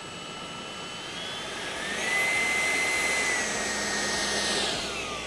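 The 80mm electric ducted fan of a model F4D Skyray jet whining as the plane taxis on the runway. The whine rises in pitch and gets louder about two seconds in, holds, then drops in pitch near the end.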